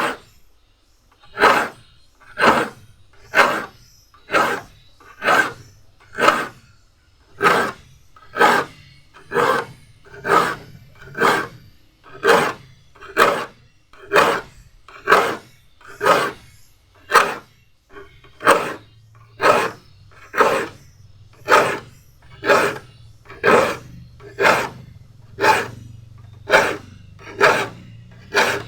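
A metal file drawn across the teeth of a crosscut hand saw to sharpen them: one short rasping stroke about once a second in a steady rhythm.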